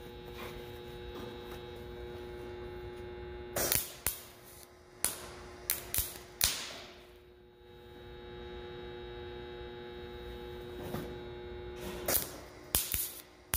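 MIG welder arc firing in short, erratic bursts of sharp pops instead of a steady crackle, one cluster about four seconds in and another near the end, over a steady electrical hum. The welder is not running right even with wire speed and voltage set to spec, and the welder cannot tell why.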